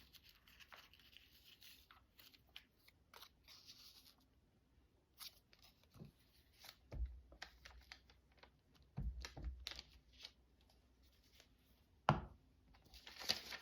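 Paper and tape being handled on a craft table: scattered rustles, light taps and short tearing sounds, with a couple of dull thumps midway and a sharp click near the end followed by crinkling.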